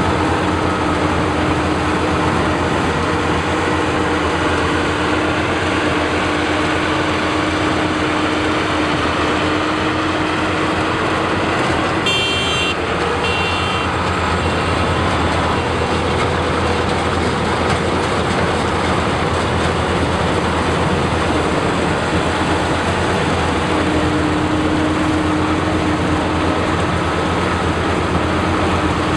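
Combine harvester running steadily at work in a rice field, with a dense, even engine-and-machinery noise and a few steady hums. A brief high-pitched sound cuts in about twelve seconds in.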